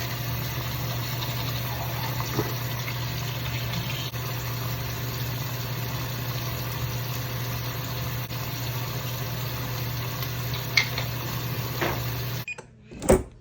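A household appliance running with a steady electrical hum and hiss, cutting off abruptly near the end, followed by a sharp click.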